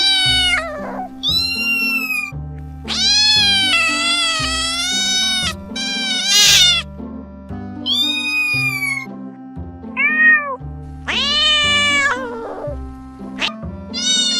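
A domestic cat meowing over and over, about eight separate meows of different lengths, most rising then falling in pitch, one drawn out for about two and a half seconds. Low background music with steady chords plays underneath.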